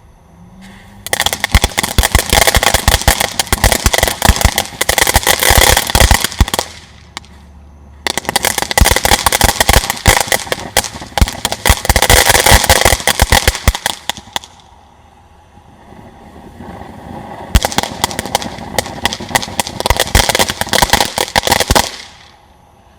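Pyro Planet Blueberry Moonshine 200-gram fountain firework burning with sharp crackle. Three long waves of dense crackling, each lasting several seconds, with quieter stretches between them.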